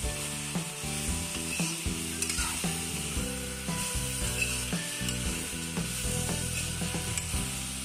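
Duck meat sizzling in hot oil in an aluminium kadai while a metal ladle stirs it, scraping and knocking against the pan at irregular intervals. Background music with steady, stepping notes plays underneath.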